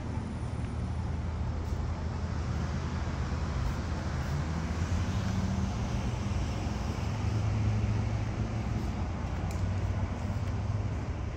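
Steady street traffic noise with a low engine rumble, a little louder past the middle.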